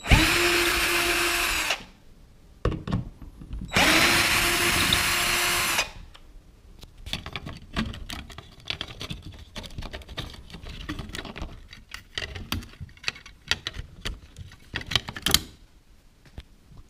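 Cordless power screwdriver with a Phillips bit running twice, about two seconds each time with a steady whine, backing out the screws that hold a thermostat wall plate. After that come light plastic clicks and knocks as the mounting bracket is lifted off and the wires are pulled free.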